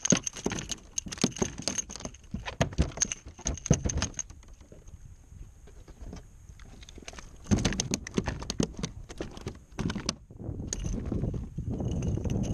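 Handling noise on a plastic Hobie pedal kayak as a redfish is stowed in the centre hatch: quick clicks, knocks and rattles against the deck and hatch, coming in bursts with a quieter stretch in the middle.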